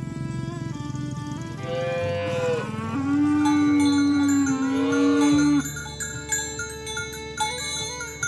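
Cow mooing: a short call that rises and falls about two seconds in, then one long, steady, loud moo that stops about five and a half seconds in. Background music with chime-like notes plays underneath.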